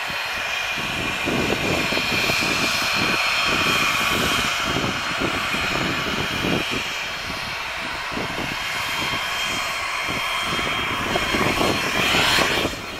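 Embraer Legacy 600 business jet's twin rear-mounted Rolls-Royce AE 3007 turbofans running from directly behind, a steady high whine over a rough, fluctuating exhaust rumble. Near the end the sound rises as the jet starts rolling away for takeoff.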